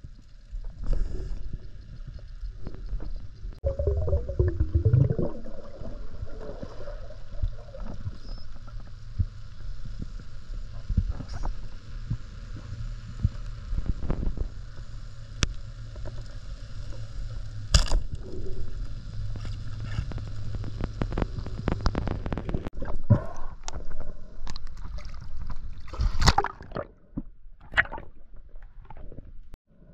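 Water sloshing and gurgling around a spearfisher's body-worn camera as he swims in the sea, over a steady low rumble, with many small clicks and knocks and two sharp louder knocks, one about halfway through and one near the end.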